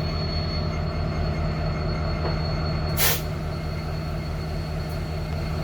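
Freight train of tank cars rolling past, a steady rumble with a thin, steady high-pitched wheel squeal. A brief burst of hiss comes about three seconds in.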